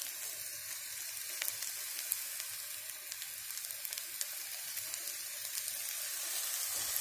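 Cabbage-and-chicken patties frying in a little vegetable oil in a frying pan over low heat: a steady sizzling hiss with scattered small crackles and pops.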